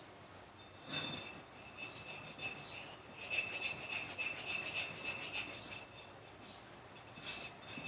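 Abrasive rubbing on rusty metal, as in hand sanding, filing or wire-brushing off rust: a single scrape about a second in, then a run of quick back-and-forth strokes.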